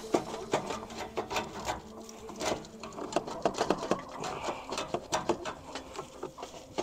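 Irregular metal clinks, knocks and scrapes as the BMW M340i's stock exhaust downpipe is wiggled and worked free from under the car.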